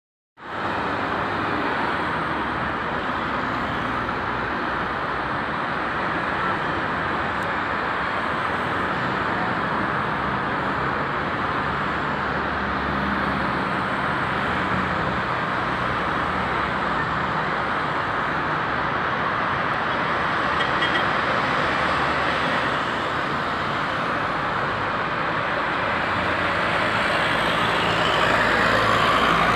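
Steady road traffic noise from a busy multi-lane street, with cars and other motor vehicles passing in a continuous hum. It grows a little louder near the end.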